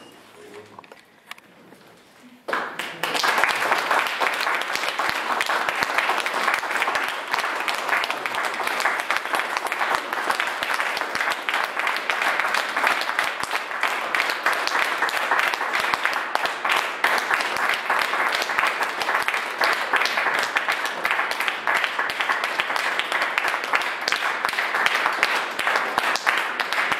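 A small audience breaks into applause about two and a half seconds in and keeps clapping steadily.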